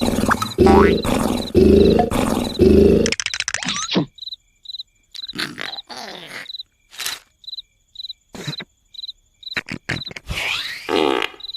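Cartoon snoring: a rapid run of loud, rasping snores, one roughly every three-quarters of a second, stops about three seconds in. Then comes a quiet stretch with a steady cricket chirp about twice a second, broken by a few short cartoon sound effects and vocal noises.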